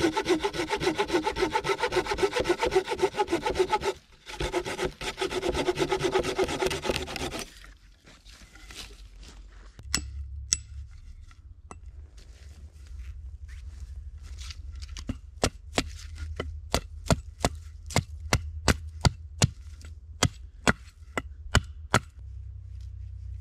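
Hand saw cutting through a dead wooden branch with quick back-and-forth strokes, pausing briefly and stopping about seven and a half seconds in. Later an axe strikes wood again and again, about two sharp knocks a second, as a wooden stake is shaped.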